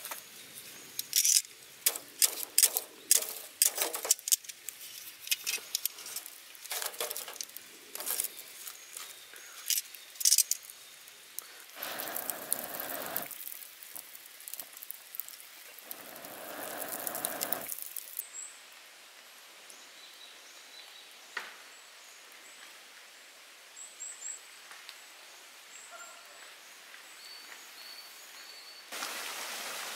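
Clicks and knocks of camp coffee gear being handled, with two short rushing sounds, then a quiet stretch with a few faint high chirps. A steady rain hiss sets in near the end.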